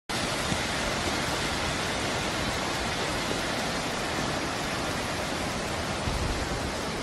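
Flash floodwater rushing down a wadi in spate: a steady, even rush of churning muddy water.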